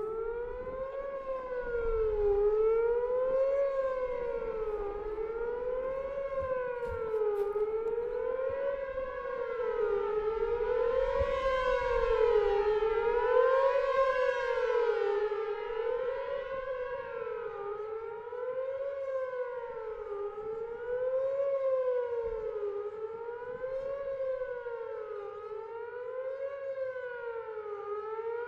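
Whelen Vortex R4 outdoor warning siren sounding its Attack signal, a fast wail whose pitch rises and falls about every two seconds without a break.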